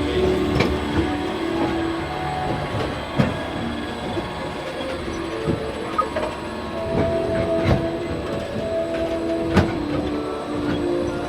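A Spaceship Earth omnimover ride vehicle rumbling along its track, with sharp clicks every second or two, over the ride's soft ambient music of held notes.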